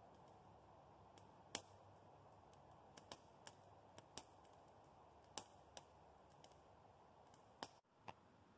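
Campfire crackling faintly: irregular sharp pops and snaps of burning wood over a low hiss, the loudest pop about one and a half seconds in.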